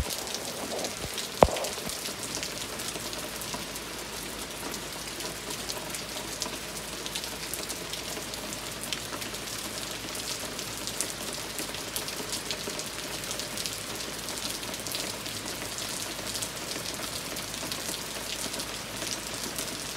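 Steady rain falling on a wet wooden deck, a continuous hiss made of many separate drop taps. A single sharp knock about a second and a half in.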